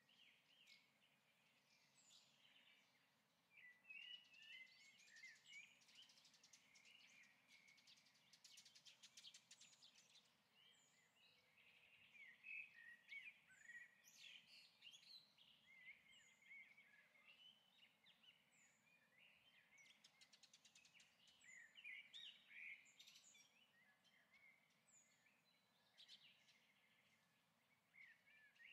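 Faint birdsong: irregular chirps and twitters, with short high calls recurring every couple of seconds.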